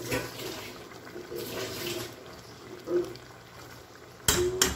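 Sauce simmering and bubbling in a metal pan, with an uneven watery hiss. Near the end a metal spoon knocks twice against the pan.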